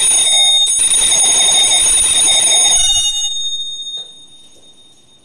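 Altar bells rung in a loud, continuous jangle at the elevation of the chalice, marking the consecration. The jangling stops about three seconds in and the ringing fades away over the next two seconds.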